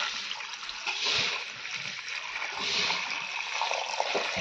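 Water pouring in a steady stream into a stainless-steel bowl, splashing over pieces of smoked pork and dried red chillies.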